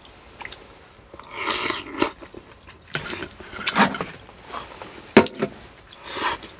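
A person eating hot soup and rice: chewing and mouth sounds in short spells, with a sharp clink of utensils on a bowl about five seconds in.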